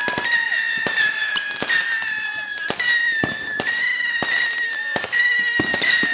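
Consumer fireworks going off in quick succession: sharp, irregular cracks and pops, over a steady high-pitched whine that breaks off and starts again about once a second.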